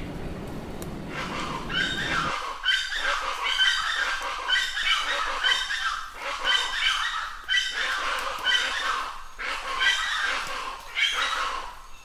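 Birds calling over and over, a cluster of pitched notes about once a second, from about a second in. Beneath the first two seconds is a low rushing noise that cuts off abruptly.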